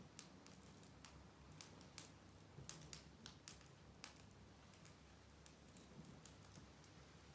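Small wood fire crackling softly, with irregular sharp pops and ticks that come thicker in the first half, over a faint low hum.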